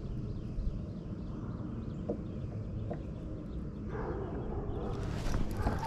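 Wind rumbling on the microphone over a pond, with faint birds chirping in the background; about four seconds in, a louder rough noise builds up.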